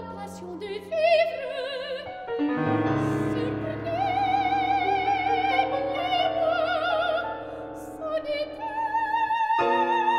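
A soprano singing a classical art song with wide vibrato, accompanied by a grand piano that holds low chords under the voice.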